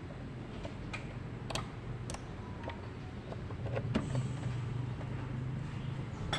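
Steady low hum that grows a little louder about four seconds in, with scattered light clicks and knocks of work on a car.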